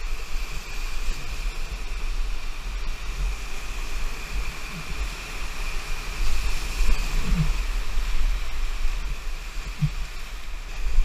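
Whitewater rapids rushing steadily, a continuous roar of churning water, with low rumbling buffeting on the action-camera microphone.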